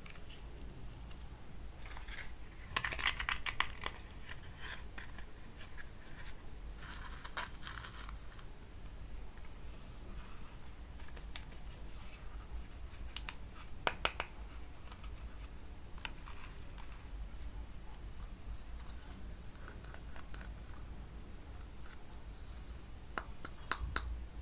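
Hard plastic toy food pieces handled by hand: scattered light clicks and taps of plastic, with short scratchy rustles about three and seven seconds in and a few sharper clicks near the end.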